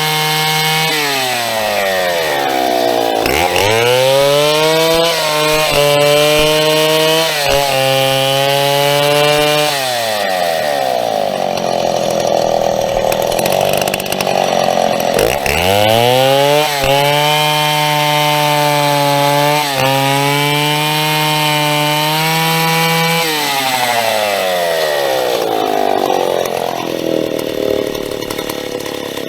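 Big vintage two-stroke Stihl chainsaw cutting birch. It runs at a steady high pitch between cuts, and three times its pitch drops sharply and stays low and rough as the bar is pushed into the wood, then climbs back up as it comes free.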